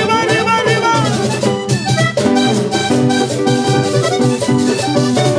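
Live vallenato music. A sung wordless wail slides up and down in pitch over the first second and a half, then the button accordion plays a riff over a bass line and a steady percussion beat.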